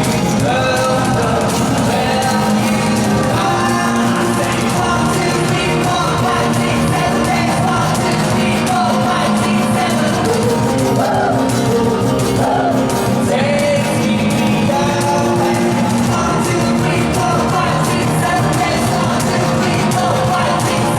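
Live amplified rock band playing a song, with lead vocals sung over guitars, bass and drums.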